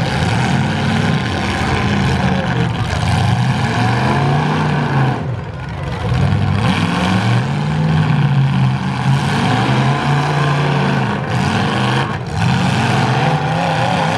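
Engines of two full-size demolition derby cars revving hard, rising and falling in pitch over and over as the cars shove against each other, locked together.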